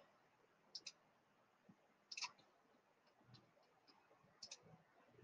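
Faint computer mouse clicks: three quick double clicks spread across a few seconds, with a few lighter ticks between them.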